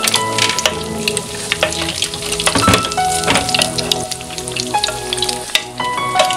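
Egg-soaked bread slices frying in hot oil in a pan, sizzling steadily with many small pops and crackles. A slotted spatula knocks against the pan as the slices are turned.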